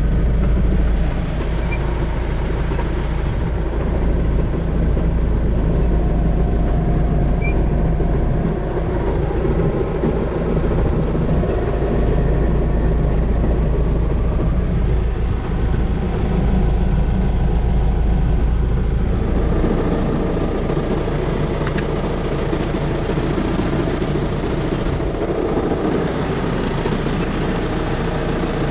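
John Deere tractor's diesel engine running steadily while its rear remote hydraulic outlets are pressure-tested through a gauge; the engine note shifts slightly about twenty seconds in.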